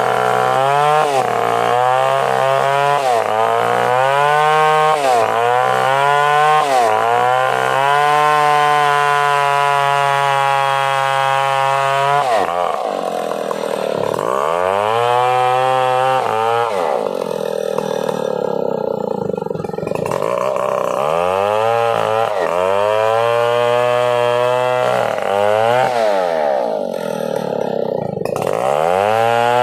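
Stihl 070 two-stroke chainsaw running hard, its engine note held high for stretches and then dropping sharply and climbing back several times, mostly in the second half.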